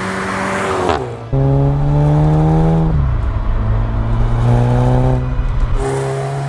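Volkswagen Golf 7 GTI's turbocharged 2.0-litre four-cylinder, through a Remus exhaust line and silencer, going past with its note falling in the first second. Then it accelerates hard with the engine pitch rising, drops in pitch at an upshift about three seconds in, and pulls again. Near the end it passes by once more with a falling note.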